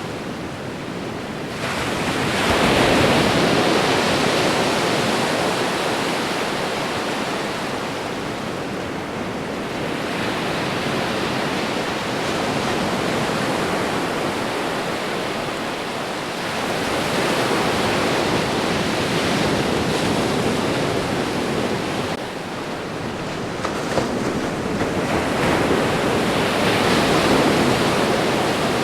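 Ocean waves washing onto a shore, each swelling up and then easing off, about four times in a row, over a steady background hiss of surf.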